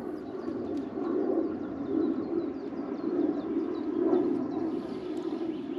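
Birds calling outdoors: many short high chirps over a steady low rushing sound.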